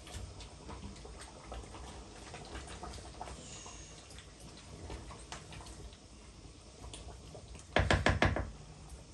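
Ground cassava leaves being scraped out of a plastic bowl into a cooking pot: faint scraping and light clicks, then a quick run of about five sharp knocks on the bowl near the end as the last of the leaves are knocked out.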